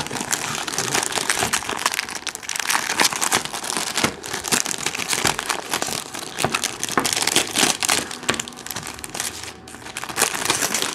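Plastic packaging crinkling and crackling continuously as it is handled and pulled at to free a keyboard from its wrapping.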